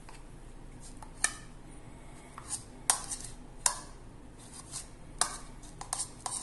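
Metal spoon clinking and scraping against a plate of rice as food is scooped up: several sharp clinks at irregular intervals, with a quick cluster near the end.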